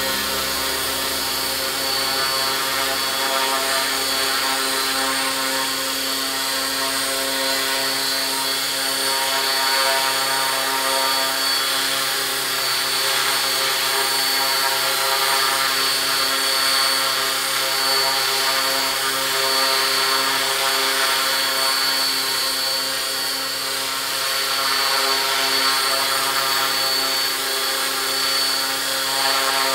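Electric RC helicopter (Align T-Rex 500 Pro fitted with an Align four-blade rotor head) in a steady hover, its motor, gears and rotor blades giving a constant hum with a high whine on top. It is running smoothly on its first hover with the new four-blade head.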